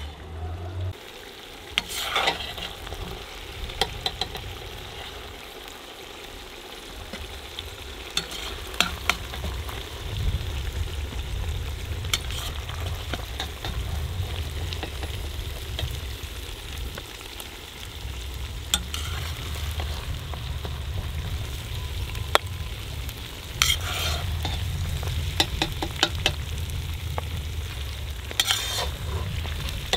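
A metal ladle scraping and clinking against a cast-iron kazan and a metal serving tray as stewed lamb ribs and potatoes are scooped out. Scattered sharp clinks, some in quick runs, sound over a steady low rumble.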